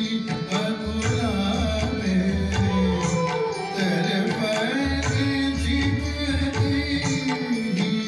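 A thumri-style bhajan, sung with tabla accompaniment; the voice slides through ornamented phrases over the deep tabla strokes.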